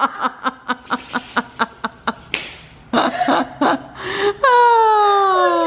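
A woman laughing in a quick run of short, even bursts, then a long voiced 'aww' that slowly falls in pitch near the end.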